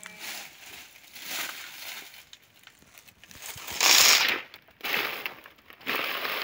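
Footsteps crunching and rustling through dry banana leaf litter: a few irregular crunches, the loudest about four seconds in.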